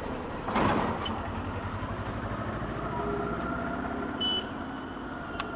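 Vehicle engine and road noise running steadily, heard from a moving vehicle, with a brief loud rush of noise about half a second in and a short high beep about four seconds in.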